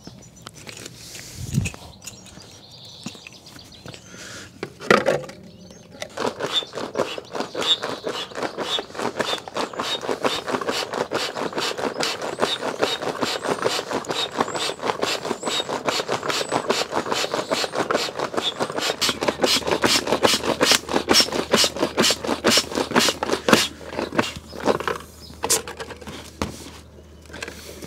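Small foot pump worked in quick, even strokes, a rapid train of air puffs, inflating an Advanced Elements Packlite inflatable kayak. A few knocks and rustles of handling come first, and the pumping starts about six seconds in and tails off near the end.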